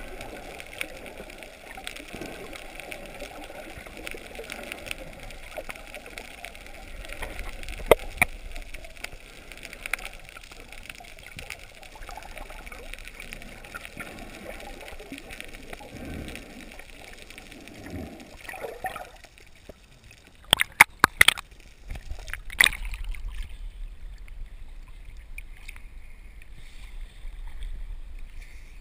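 Muffled rushing and gurgling of water heard through a submerged camera, with occasional light ticks. About two-thirds of the way through the sound changes as the camera breaks the surface: a few sharp splashes, then light water lapping.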